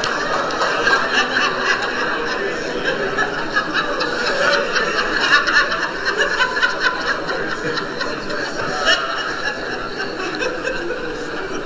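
Congregation laughing together, many voices at once, going on without a break.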